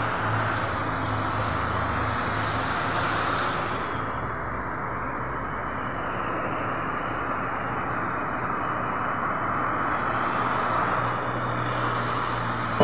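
Steady road traffic on a multi-lane city road: tyre and engine noise from cars passing below, swelling as vehicles go by near the start and again around three seconds in.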